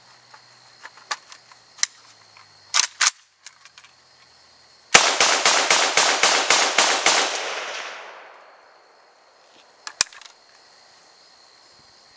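AK-47 in 7.62x39 firing a rapid string of about ten shots over some two seconds, each shot echoing and the echo dying away after the last. Before the string come two sharp metallic clacks as the rifle is readied, and a single sharp click follows. The string stops short because the dirt-fouled TAPCO magazine fails to strip the last round into the chamber.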